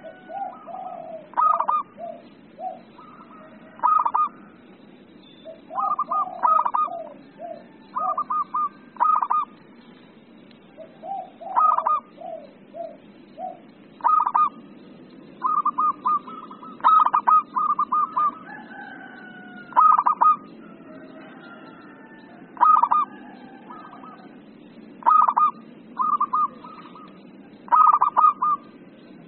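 Zebra dove (perkutut) singing an agitated song: short phrases of rapid, clipped cooing notes every second or two, some ending in a few lower notes.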